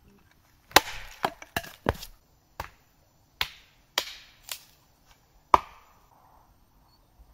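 Hatchet chopping wood on a stump chopping block: about nine sharp strikes at an uneven pace, the last one about five and a half seconds in.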